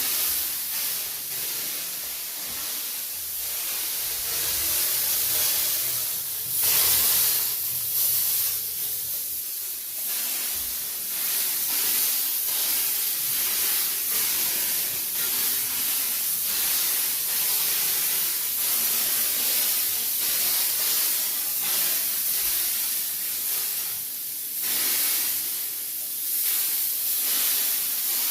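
Disinfectant sprayer hissing steadily as it sprays, briefly louder about seven seconds in and again near the end.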